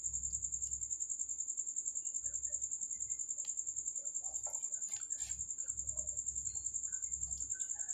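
A cricket chirping in a steady, high, fast-pulsing trill, with faint scratching of a pen writing on paper and a few soft clicks.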